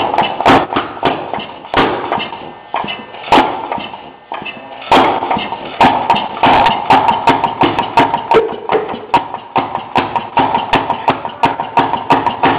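Single-cylinder two-stroke Fairmont ROC motorcar engine running on a test stand, each firing a sharp pop. The beat is uneven and thins out almost to stalling about two to five seconds in, then picks up to a fast, steady run.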